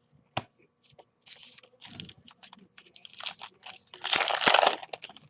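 Trading cards and their packaging being handled: quick crinkling and rustling with small clicks, a sharp click about half a second in, and the loudest, densest rustle about four seconds in.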